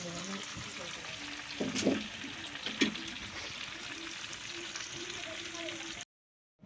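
Food sizzling in hot oil in a pan, a steady hiss with a few sharp knocks about two and three seconds in. It cuts off abruptly near the end.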